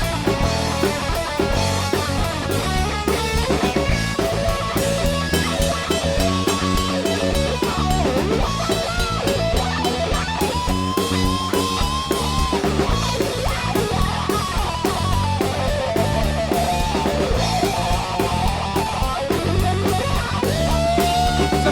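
A rock band playing live in an instrumental passage without vocals: guitars over a steady drum-kit beat, with a lead melody of sliding, bent notes.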